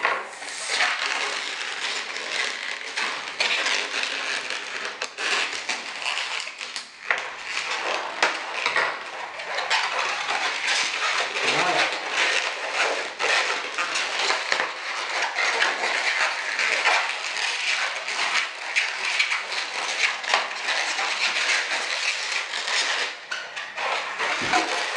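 Turquoise latex twisting balloon squeaking and rubbing constantly as it is handled and twisted, with many short sharp squeaks.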